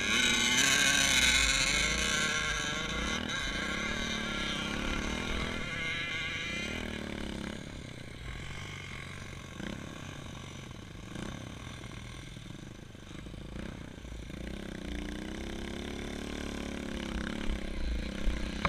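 Off-road motorcycle engine revving up and down several times, loudest in the first couple of seconds, then fading to a distant drone, with one more rise and fall in pitch near the end.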